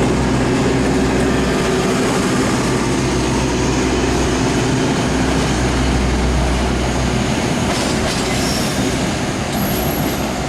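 Train moving on the rails close by: a steady low hum over continuous wheel and rail noise, with brief high wheel squeals near the end.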